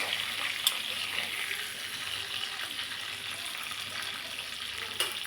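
Garlic and ginger frying in hot oil in a kadhai, a steady sizzle with a couple of light clicks.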